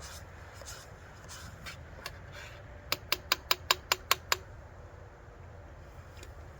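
A quick run of eight sharp clicks, about five a second, from some small mechanism, over a steady low rumble.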